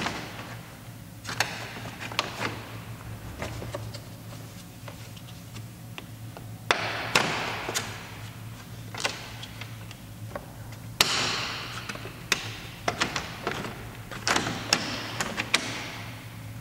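Plastic retaining clips and the hard plastic air-intake cover panel of a Mercedes-Benz C-Class W204 being pushed and worked loose by hand. Scattered sharp clicks and knocks, with a few longer plastic scrapes as the panel is shifted.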